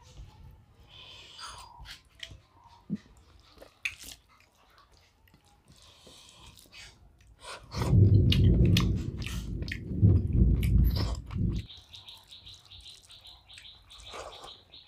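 A person eating rice and chicken rezala by hand from a steel plate, with fingers working the food and chewing with small mouth clicks. About eight seconds in, a loud low rumble lasts nearly four seconds. Near the end there is a high, rapidly pulsing chirp.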